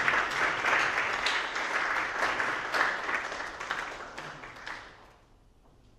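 Audience applauding with dense hand-clapping that thins out and dies away about five seconds in.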